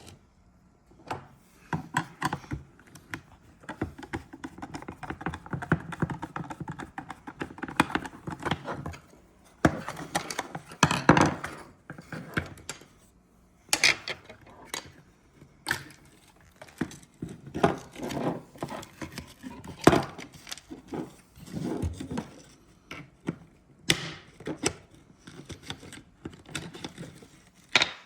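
Hand tools and hard plastic parts clicking, knocking and clattering as an electronic device is taken apart by hand, with stretches of scraping and rubbing between irregular sharp knocks.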